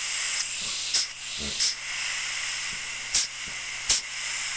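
Compressed air hissing steadily from a leak in the pendant control's air hose on an Ingersoll pneumatic chain hoist, with a few light clicks of handling.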